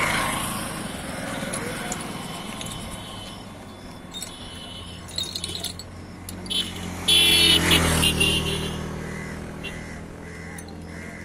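Road traffic passing close by: vehicle noise swells and fades, with a few light metal clinks of hand tools on the fan hub in between. About seven seconds in a short, very loud pitched blast sounds as another vehicle goes by, its rumble fading away afterwards.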